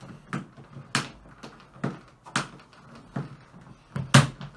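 Hard plastic knocks and clacks from the hood of a covered cat litter box being pressed and snapped down onto its base, about seven sharp knocks with the loudest near the end. The hood is a stiff fit and closes with difficulty.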